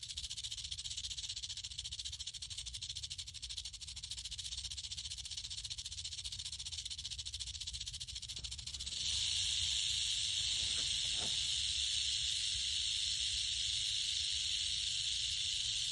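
Rattlesnake rattling its tail in a continuous dry, high buzz, the defensive warning of an agitated snake; the buzz grows louder about nine seconds in.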